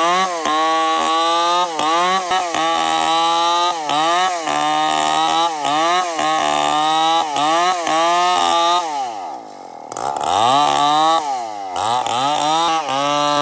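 Chainsaw engine running at high revs while cutting wood, its pitch dipping and recovering again and again as the chain bites. About nine seconds in the revs drop away, then it is revved up again twice.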